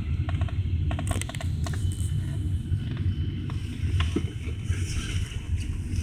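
Road and engine rumble heard inside a moving car's cabin, a steady low drone, with scattered small clicks and rattles, a cluster of them about a second in.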